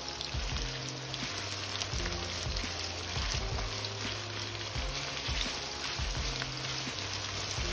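Sliced onions sizzling steadily as they fry in hot oil to make birista (crisp fried onions), with soft background music underneath.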